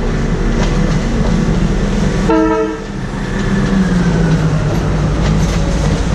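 Budd Rail Diesel Cars passing close by, their diesel engines running with a steady drone. About two seconds in the horn gives one short blast, and the engine pitch then slowly drops as the cars go past.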